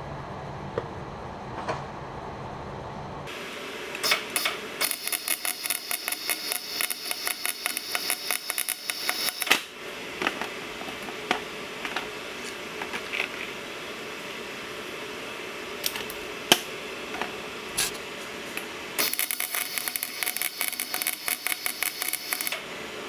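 Welder crackling in two bursts of several seconds each while welding up an exhaust pipe, with scattered single clicks between the bursts.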